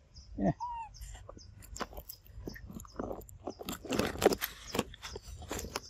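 Close, irregular crunching and crackling of leaves and twigs, thickest about four seconds in. A brief rising squeal comes about half a second in.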